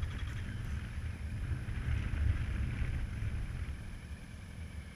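Wind buffeting the microphone of a stationary action camera, with a low, uneven rumble throughout. A vehicle passes on the road, its hiss swelling about two seconds in and fading away near the end.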